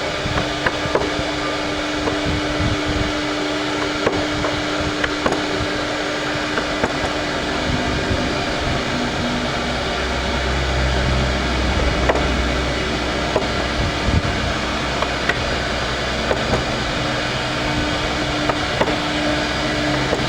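Steady machine hum with a low held tone, and scattered sharp taps and clicks throughout; a deeper rumble swells from about 8 to 14 seconds in.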